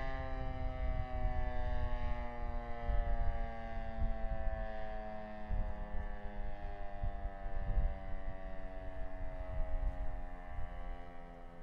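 Siro-Drone outdoor warning siren winding down after its test, its tone sinking slowly and steadily in pitch. An irregular low rumble sits underneath.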